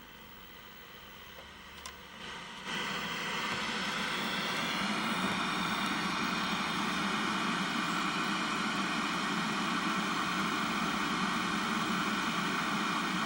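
1980 Sony Trinitron KV-1913 colour portable television just switched on: a faint hum, then about three seconds in a steady hiss with a buzz comes up and slowly grows louder as the set warms up.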